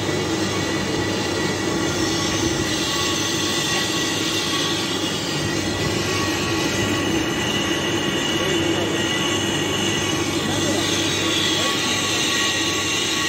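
Large lathe running with its cutting tool turning the end of a spinning steel tube: a steady machining noise with several steady whining tones over it.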